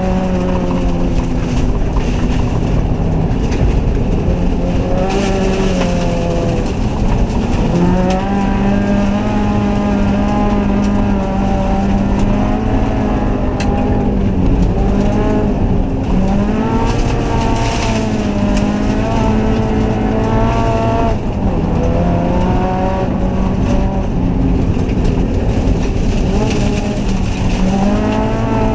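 Turbocharged Subaru flat-four engine heard from inside the cabin, driven hard on ice, its revs climbing and dropping again and again as the driver works the throttle through the course.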